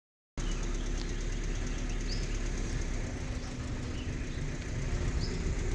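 Safari vehicle's engine idling with a steady low rumble, with two short high chirps about two and five seconds in.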